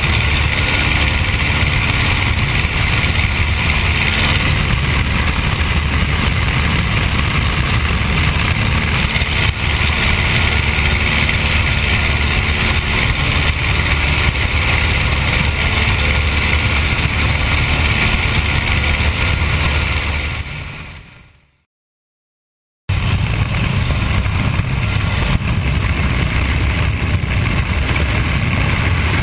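de Havilland Tiger Moth's Gipsy Major four-cylinder inverted engine running steadily at take-off power, with slipstream rushing past the open cockpit, through the take-off run and climb. About two-thirds of the way through, the sound fades away to silence for a second or so, then comes straight back at the same level.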